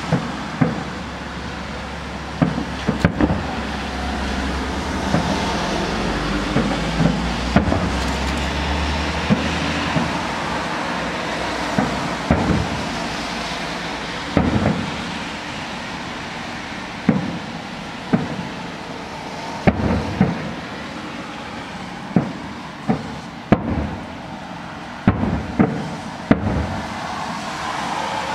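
Aerial firework shells bursting in an irregular series of sharp bangs, roughly one every second or two, each with a short echoing tail, over a steady background rush of noise.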